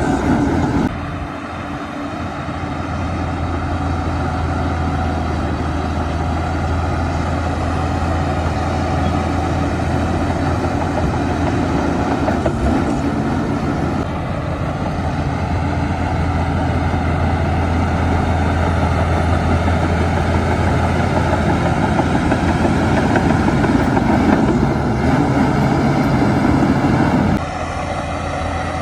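Heavy diesel earthmoving machinery running steadily, its engine note shifting with load about a second in, around halfway, and again near the end.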